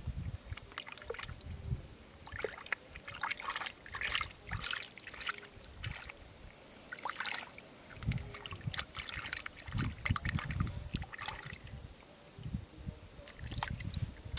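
Hands digging and squelching in wet river mud and shallow water, with irregular small splashes and drips as freshwater clams are pulled out of the mud.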